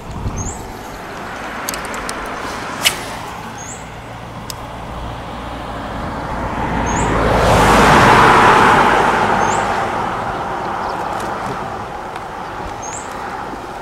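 A road vehicle passing by, its noise swelling to a peak about eight seconds in and then fading away. A short high chirp repeats every couple of seconds, and a single sharp click comes about three seconds in.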